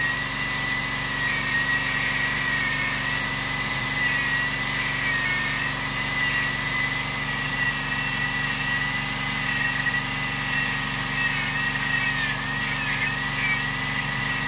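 Dental drill handpiece with a fine bur, run slowly while cutting into the cavity of an extracted decayed tooth: a steady high whine that wavers slightly and dips briefly near the end as the bur bites.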